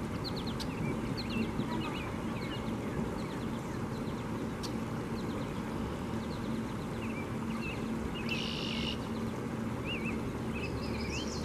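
Small songbirds chirping and calling again and again, with a short buzzy call about eight seconds in and quick trilled notes near the end, over a steady background rush.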